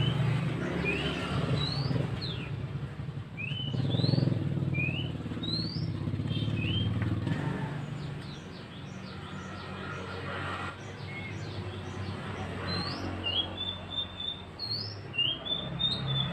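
Male mandi darah (mantenan) bird calling: a run of short, high chirps, most sliding quickly upward, repeated every half second to a second, over a steady low rumble.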